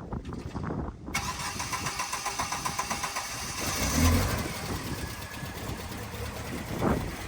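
Car engine cranking on the starter from about a second in, catching with a loud surge around four seconds in, then running at idle.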